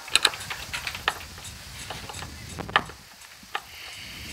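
Hand screwdriver turning a screw into a pontoon anchor mount bracket: irregular sharp clicks from the driver and screw, a fraction of a second to about a second apart, with a brief higher scraping sound near the end.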